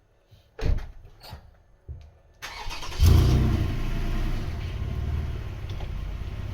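A knock, then a motorcycle engine being started: a short whirring from about two and a half seconds in, then the engine catches and runs steadily at idle. The engine is the Ducati 959 Panigale's L-twin, started just after a fresh oil fill.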